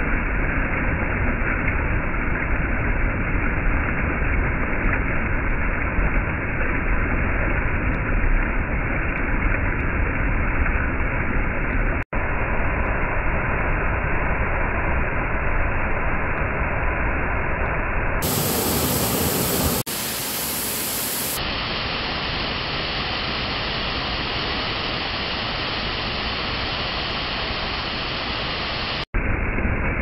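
Waterfall and a stream cascading over rocks: steady, loud rushing water. It cuts out abruptly for an instant about twelve seconds in and again near the end, and turns a little quieter and thinner for the last third.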